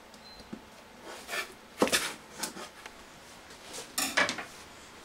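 Cardboard box and packaging being handled and opened: a few sharp knocks and clatters with short scraping rustles, loudest about two seconds in and again about four seconds in.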